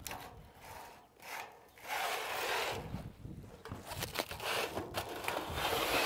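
Irregular scraping and rubbing on a corrugated metal roof, swelling about two seconds in and carrying on in uneven strokes.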